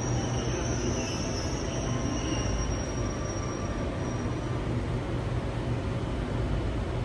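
Singapore MRT North East Line train running through a tunnel, heard from inside the carriage: a steady rumble and low hum, with a high-pitched wheel squeal that fades out about four and a half seconds in.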